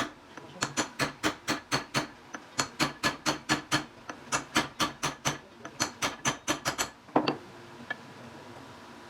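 A fast, even series of sharp taps or knocks, about five a second, ending about seven seconds in with one louder knock; after that only a faint steady hum remains.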